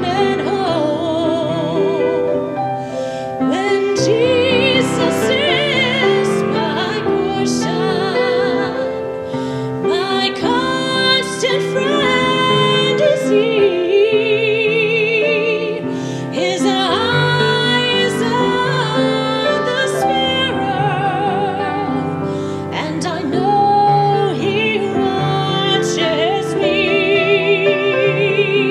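A woman singing solo in a classical style with strong vibrato, accompanied by a grand piano.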